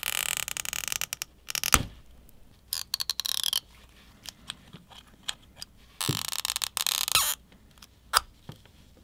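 Metal tweezers tugging at the adhesive pull tab under an iPhone 12 Pro Max battery: three spells of scraping and rubbing, near the start, around three seconds in and about six seconds in, with small clicks between them and a sharp click just before two seconds in. The tabs keep breaking instead of stretching out from under the battery.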